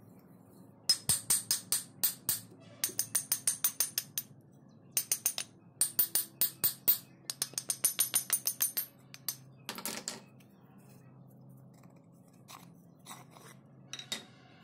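Rapid metallic clicking and rattling in bursts of about ten clicks a second, from a loose, rusty axe head knocking on its wooden handle as it is worked off, then a few single clicks near the end.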